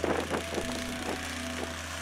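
Snowblower engine running steadily, with a few sharp knocks in the first half second.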